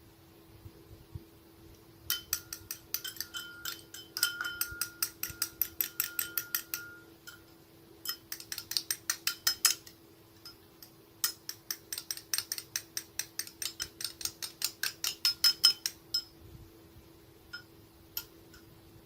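A spoon clinking rapidly and regularly against the sides of a glass bowl while stirring, about five strikes a second, with a faint ringing from the glass. It comes in three runs, stopping briefly twice.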